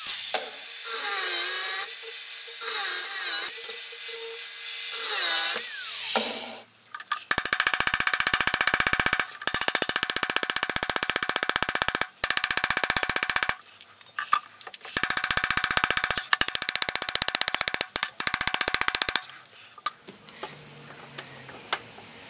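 A small power grinding disc runs against the cleaver's handle, its pitch dipping each time it bears on the work, for about six seconds. Then a small hammer taps rapidly on the handle pins over a steel anvil, peening them, in long runs of quick ringing metallic taps with a short pause midway. Light clatter follows near the end.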